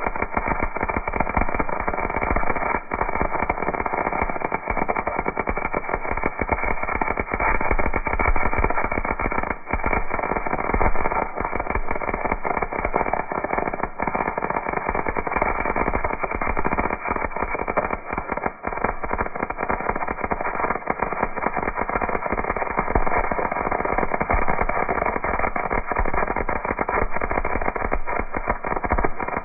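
MIG welder arc crackling steadily as a bead is laid, a dense, even sizzle of fine pops.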